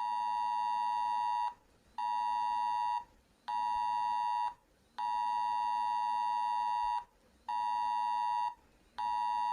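Electronic emergency alert tone beeping at one steady pitch in a repeating long-short-short pattern: about a second on and half a second off, with every third beep held about twice as long.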